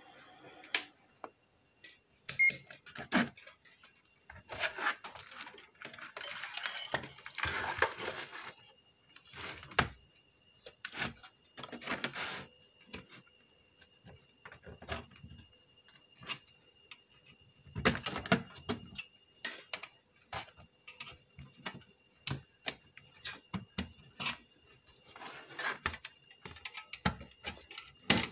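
Hands and a screwdriver working on a Pioneer car stereo's sheet-metal chassis as it is taken apart: scattered metallic clicks and taps, with several longer spells of scraping and rattling.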